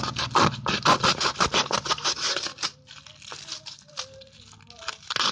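A crinkly sheet of wrapping material being handled, rustled and crumpled by hand in quick crackling strokes. The rustling goes quieter a little over halfway through, then picks up again near the end.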